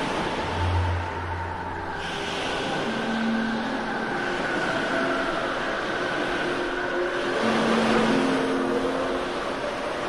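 A rushing, wave-like noise that swells and ebbs every two to three seconds, over long held tones that shift in pitch now and then.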